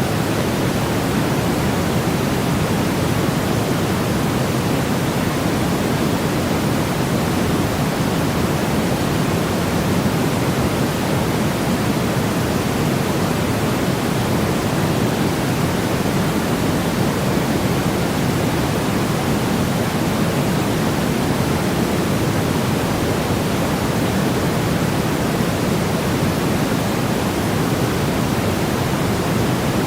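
Steady, unchanging white-noise track: an even hiss with most of its weight low down, no rises, breaks or events.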